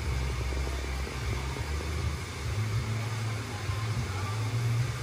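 A vehicle engine running steadily with a low hum.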